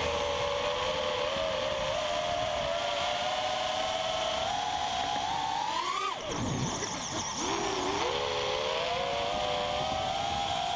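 FPV quadcopter's electric motors and propellers whining in flight. The pitch slowly rises to a peak about six seconds in, drops sharply, then climbs back up and levels off over the second half.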